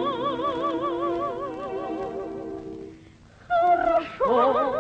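Operetta singing with orchestra: a high female voice holds the last note of a phrase with wide vibrato over sustained orchestral chords, fading away about three seconds in. After a short gap, singing starts again near the end.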